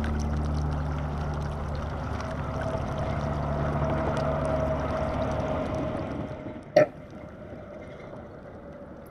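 Pedal kayak moving across open water: steady water rush along the hull with a low steady hum. A single sharp knock comes about 7 seconds in, and after it the rush drops to a quieter level.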